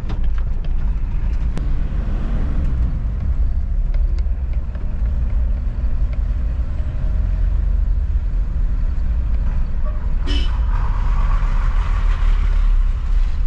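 Mitsubishi Pajero driving over a badly broken road: a steady low rumble of engine and tyres, with a brief clatter and a few seconds of hiss near the end.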